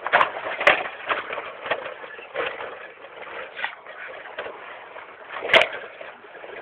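Rover Metro driving off-road over rough ground: a noisy, uneven rumble broken by scattered knocks, the loudest a sharp knock about five and a half seconds in.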